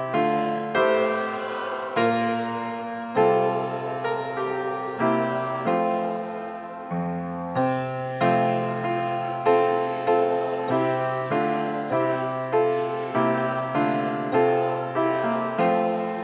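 Piano playing slow chords, each struck and then fading before the next.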